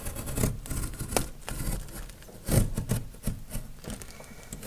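A sharp craft knife sawing through the cardboard of a large box in irregular scraping, rasping strokes, with a dull bump of the box about two and a half seconds in.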